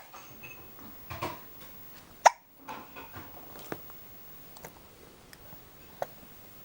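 A six-month-old baby hiccupping: several short, sharp hiccups a second or two apart.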